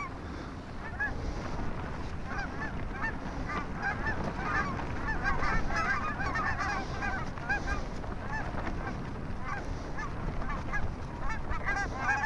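A flock of wild geese calling, many short overlapping honks and yelps, busiest around the middle and again near the end, over the low rumble of strong wind on the microphone.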